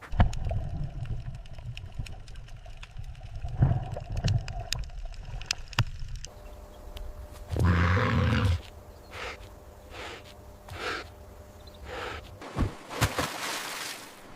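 Low rumbling calls of a large animal, breaking off abruptly about six seconds in, then one loud, pitched bellow lasting about a second near the middle, followed by scattered clicks and rustling.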